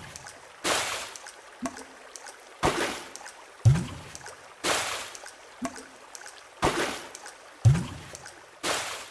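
Water-sound percussion loop built from recorded water noises, playing a slow steady beat with no other instruments. A low plop that rises in pitch falls every four seconds, a bright splash every two seconds, and light drip-like ticks in between.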